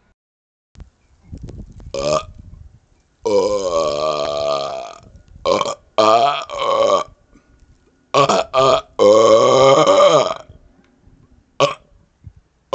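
A man belching on purpose, one burp after another: about eight burps, two of them long and drawn out for well over a second with a slowly sinking pitch, the rest short.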